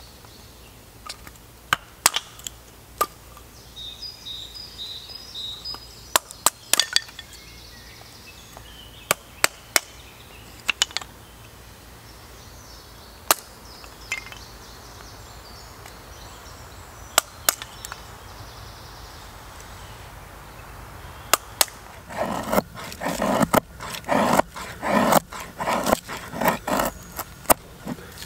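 Dry kindling being snapped and split by hand: scattered sharp cracks, then a quick run of strokes, several a second, in the last few seconds.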